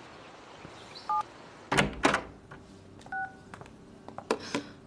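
Two short two-tone electronic beeps like telephone keypad tones, about two seconds apart, with heavy thuds of the front door opening and closing and a few knocks around them, the thuds being the loudest.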